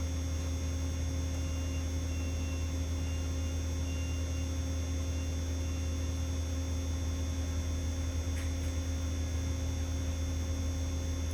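Steady low electrical hum from a car-audio amplifier bench setup, with faint short beeps in the first half.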